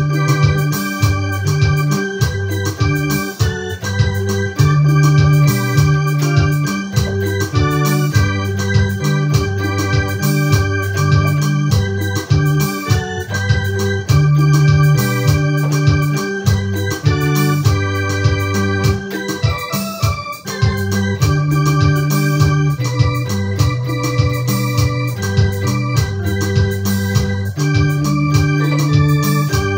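Electronic arranger keyboard played with both hands in an organ-like voice. Held chords over a bass line change every second or two as a slow tune goes on.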